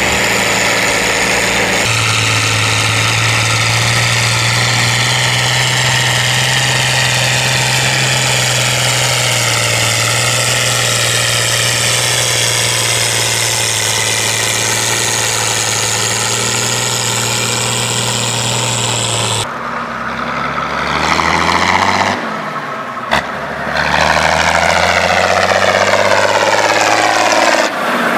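Fiat 1300 DT tractor's six-cylinder diesel engine running steadily while ploughing, its sound sweeping slowly as the tractor moves past. About two-thirds in the sound cuts abruptly to another stretch of tractor engine, ending with one running on the road and approaching.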